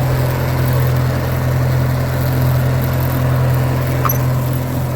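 Minneapolis Moline BF tractor engine idling steadily, just after a cold start.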